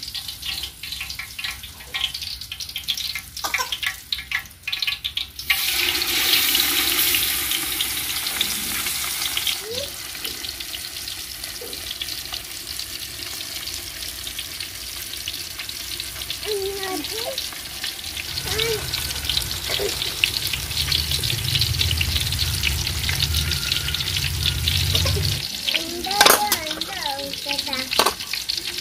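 A masala-coated fish going into hot oil in an aluminium pan: a loud burst of sizzling about five seconds in, settling into a steady frying sizzle. A short clatter comes near the end.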